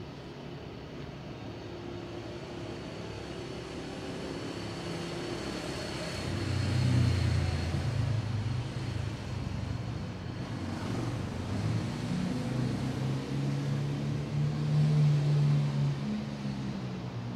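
A motor vehicle's engine running with a low hum that grows louder, strongest from about six seconds in, its pitch shifting slightly later on.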